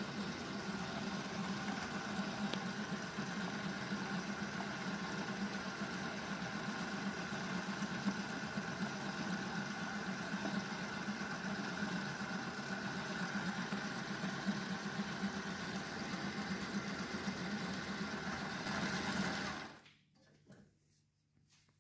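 IM 10S spiral dough mixer running steadily as it kneads pizza dough, a steady motor hum, until it cuts off suddenly near the end.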